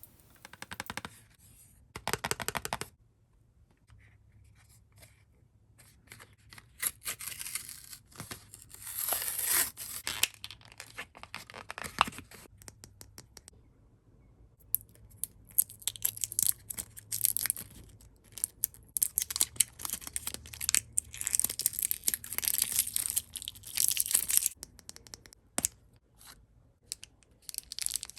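Toy packaging being torn open and crinkled by hand, in irregular bursts with short pauses.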